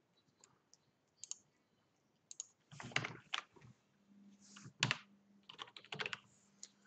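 Typing on a computer keyboard: irregular key clicks, with a few louder keystrokes about three and five seconds in. A faint steady low hum comes in about four seconds in.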